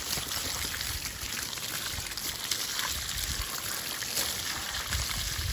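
Garden hose spraying water steadily onto a large dog's wet coat, the runoff splashing onto muddy ground.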